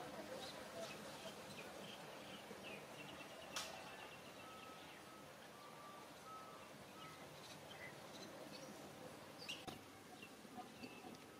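Faint outdoor ambience: scattered short, high chirps and a short run of thin, even notes over a quiet hiss, with a sharp click about three and a half seconds in and a couple more near the end.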